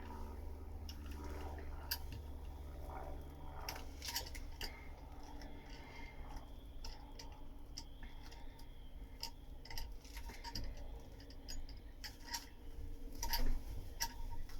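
Irregular light clicks and ticks from hand work on a wet fibreglass laminate, over a steady low hum.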